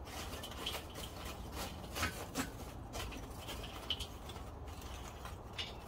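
Lumps of oak lump charcoal clinking and knocking against each other and the metal bowl as they are shifted around by hand, a scattering of irregular light knocks.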